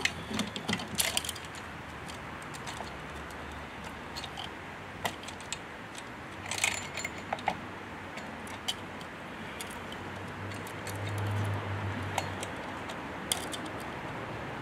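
Steel saw chain links clinking and rattling in short, scattered bursts as an Echo 3/8-inch chain is worked by hand around a chainsaw bar. A low hum runs underneath and swells briefly about ten seconds in.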